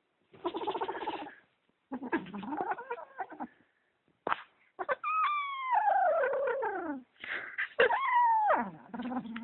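Kitten growling and yowling in a run of calls, two of them long wails that slide down in pitch, ending in a low growl: the possessive guarding noise of a kitten that has claimed a sock and won't give it up.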